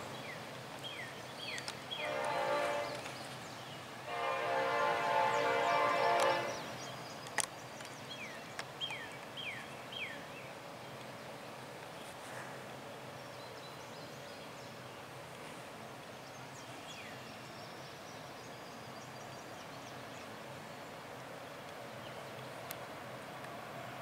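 Nathan K5LLA five-chime air horn on a BNSF GE GEVO locomotive sounding one short blast and then one long blast, the close of a grade-crossing signal. Afterwards the approaching train's low, steady rumble, growing a little near the end.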